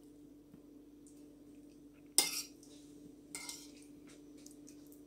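A metal spoon clinks sharply against a ceramic plate while scooping filling, with a smaller clink about a second later. A faint steady hum runs underneath.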